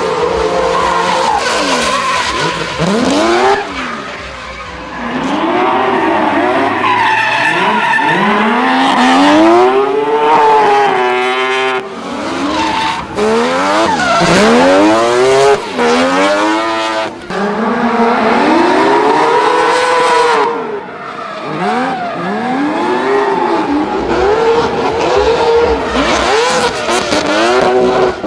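Rotary-engined drift cars revving hard, the engine pitch climbing and falling again and again as they slide, with tyres screeching on the tarmac.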